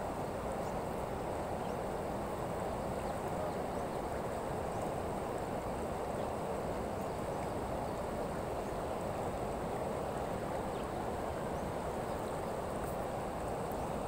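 River water flowing over a stony bed: a steady, even rush.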